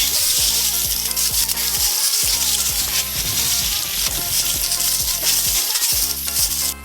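Background music with a steady beat, under a loud steady hiss.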